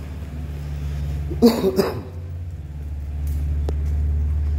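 Steady low rumble in an underground parking garage, growing louder about three seconds in, with one short cough about a second and a half in.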